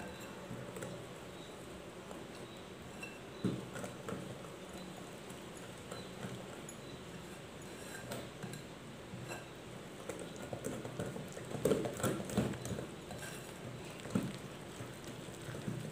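Small wire whisk stirring flour into an egg and oil batter in a glass bowl: irregular light taps and scrapes of the wires against the glass, busiest about twelve seconds in.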